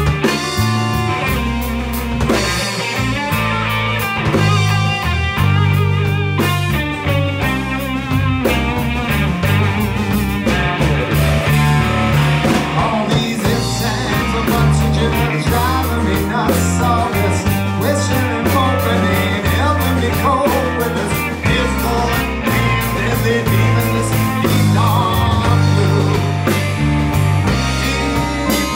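Live rock band playing: electric guitar, electric bass and drum kit, with a man singing over them.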